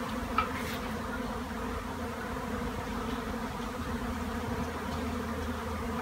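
A swarm of honeybees flying overhead: a steady, dense buzzing hum of many wings.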